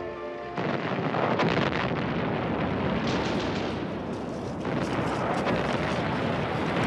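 A music cue cuts off about half a second in and gives way to a dense, continuous din of battle: rapid gunfire and explosions, louder than the music.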